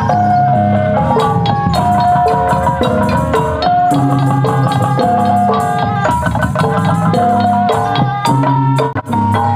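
Percussion music with a melody of short held notes stepping up and down over a bass line, accompanying a kuda kepang horse dance; it drops out briefly near the end.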